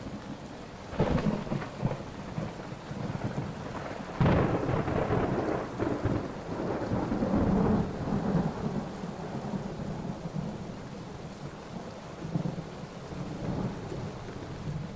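Thunderstorm: steady rain with thunder, a sharp crack about a second in and a loud clap about four seconds in that rolls on for several seconds before fading back to the rain.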